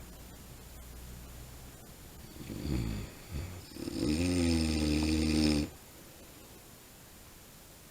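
A man snoring in his sleep. A short rasping intake comes about two and a half seconds in. It is followed by a loud, pitched snore of about two seconds that cuts off sharply.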